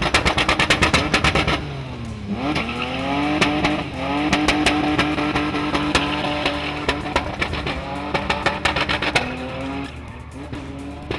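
SUV engine held at high revs while the vehicle drifts and spins its tires on the skid pan. About two seconds in, the revs dip and climb, then hold steady, with tire squeal.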